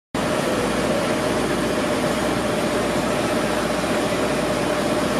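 Steady city street traffic noise with an engine idling and a constant hum; it cuts in suddenly just after the start.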